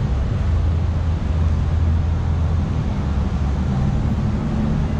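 A motor vehicle's engine running close by with a steady low hum, over general street traffic noise.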